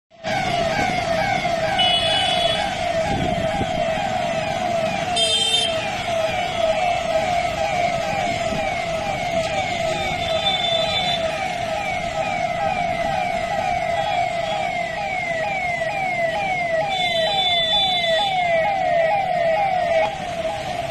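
Police vehicle siren wailing continuously in fast, repeating falling sweeps, with a few short higher-pitched tones sounding over it now and then.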